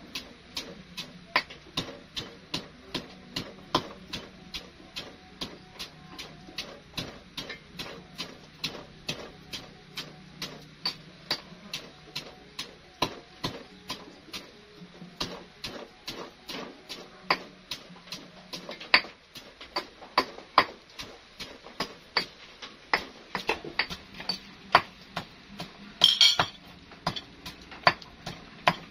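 Wooden pestle pounding ingredients into a paste in a wooden mortar: a steady run of sharp knocks, about two to three a second, with a brief louder rattle near the end.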